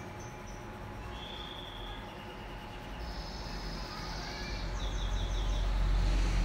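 Birds chirping in short repeated high notes and quick trills, over a low rumble that swells louder in the second half.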